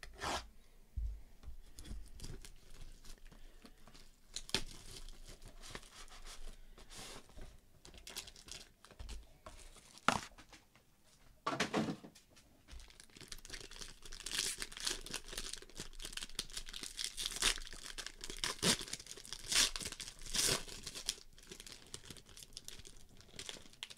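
Plastic wrapping being torn open and crinkled by hand as boxes of basketball trading cards are unsealed, in irregular rustling and ripping bursts, busiest in the second half.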